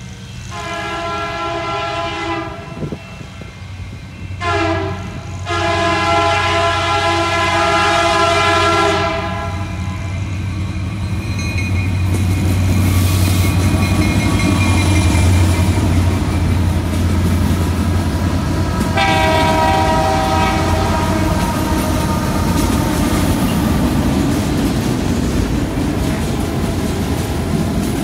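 Canadian National diesel freight locomotives passing close by. The air horn sounds a long blast, a short one about four seconds in and another long one, then one more blast about 19 seconds in. Between and after the blasts come the engines' deep rumble and the clatter of wheels on rails as the locomotives and then freight cars roll past.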